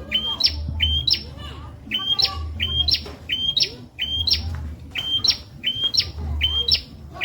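Prenjak (bar-winged prinia) calling over and over, about two sharp calls a second, each jumping up in pitch and dropping, used as a masteran song for training caged songbirds. Softer twittering sits underneath.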